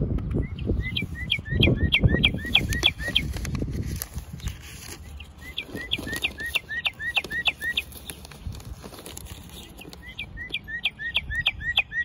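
Recorded northern cardinal song: three phrases, each a quick run of about ten clear down-slurred whistles at about four a second, with pauses of about two seconds between phrases. A low rumble sits under the first phrase.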